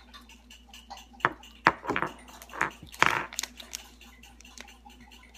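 Handling noise: a handful of sharp knocks and rustles, bunched between about one and three seconds in, as objects are reached for and picked up close to the microphone.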